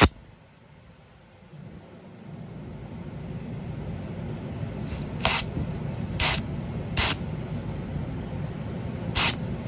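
Short bursts of compressed air vented from a paintball regulator's HPR tester while the Max Flo regulator's output is set to about 150 psi: five quick hisses in the second half, a few in close succession.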